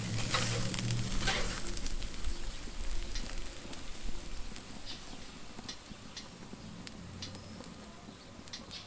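Freshly seared T-bone steak sizzling and crackling, just lifted off a charcoal kettle grill with metal tongs and spatula. There are two sharp metal knocks in the first second and a half, and the sizzle then fades steadily with scattered small crackles.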